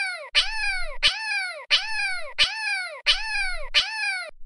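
A stock cat meow sound effect (Vyond's) repeated about seven times in quick succession, each meow identical, rising then falling in pitch.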